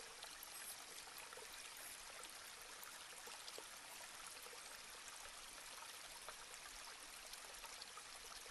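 Near silence: a steady faint hiss of room tone, with a few barely audible small ticks.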